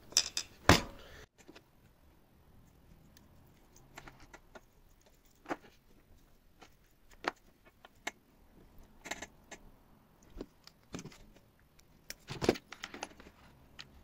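Small metal parts of a dismantled vacuum cleaner motor, the armature and its bearing, clicking and clinking as they are handled. Two sharp clicks come within the first second, then scattered lighter taps.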